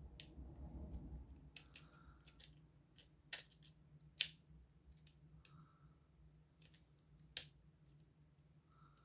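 Fine metal tweezers clicking and tapping against the plastic shell and small parts of an opened VR headset: a scatter of faint ticks and three sharper clicks, the loudest about four seconds in, over a faint low steady hum.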